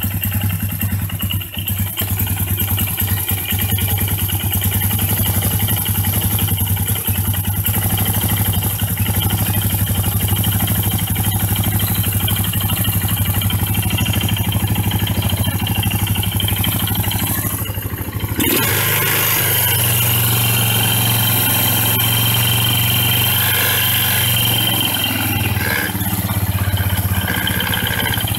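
Air-cooled Yamaha engine idling steadily. About two-thirds of the way through, its note changes and then holds steady again.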